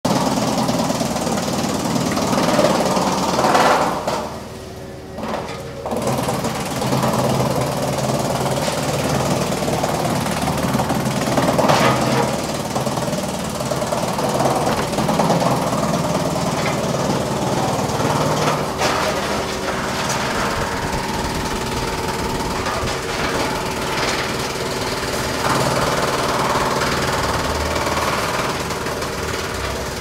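Drum wood chipper running and chipping logs fed along its infeed conveyor: a loud, dense rattle of cutting with sharper knocks now and then, and a brief lull about four seconds in.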